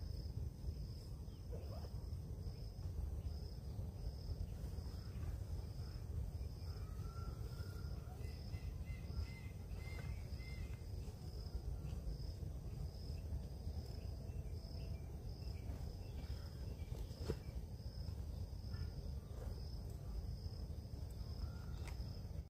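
An insect chirping in an even pulse a little more than once a second, high-pitched, over a steady low rumble. A few faint bird notes come in mid-way, and a single sharp click a little after three-quarters of the way through.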